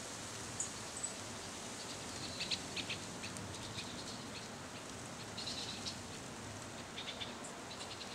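Steady hiss of light rain and breeze in tree leaves, with small birds chirping in short clusters of quick high notes a few times.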